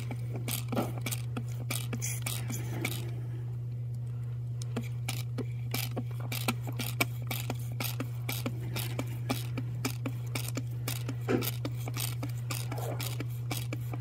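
Ear irrigation machine flushing water through a tube into the ear canal to wash out earwax: a steady low pump hum under irregular clicks and splatters of water running off into the basin.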